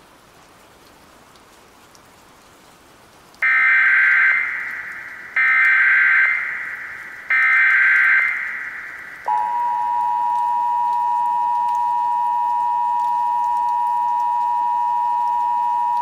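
Emergency Alert System alert: faint hiss, then three short SAME header data bursts about two seconds apart, each trailing off, followed from about nine seconds in by the steady two-tone EAS attention signal.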